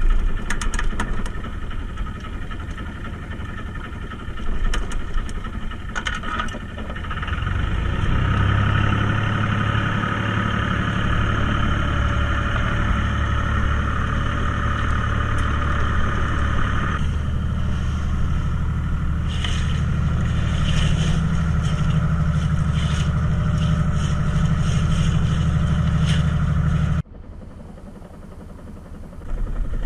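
Fishing boat's engine running steadily, growing louder about a quarter of the way in, with scattered clicks and knocks over it. Near the end the sound drops suddenly to a much quieter background.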